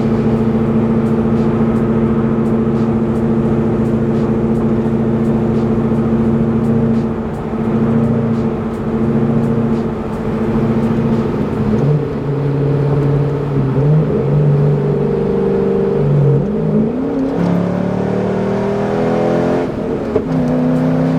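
Straight-piped exhaust of a C6 Corvette's V8 (muffler delete) heard from inside the cabin while driving. It holds a steady cruising drone for the first several seconds, then the engine note moves up and down with the throttle, rising noticeably about two-thirds of the way through.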